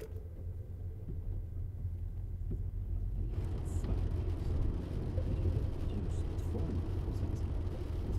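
Steady low rumble, joined about three seconds in by a broader hiss with a few faint high ticks.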